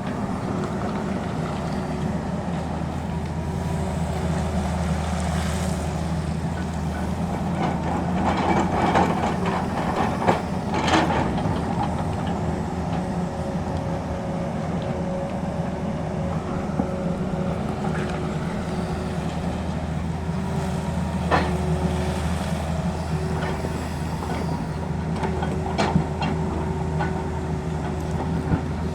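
Tata Hitachi excavator's diesel engine running steadily, with a few sharp metallic clanks, a cluster of them about a third of the way in and a few more later.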